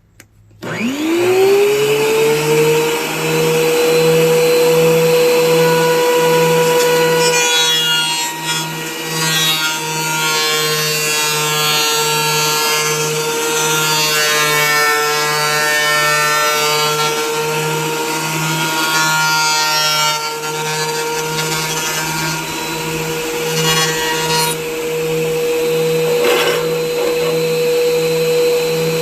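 WEN 13-inch three-blade portable planer switched on, its motor winding up in a rising whine to a steady run. From about eight seconds in to about twenty-four seconds the sound turns rougher and uneven as a rough-sawn board feeds through and is cut, then it settles back to running empty.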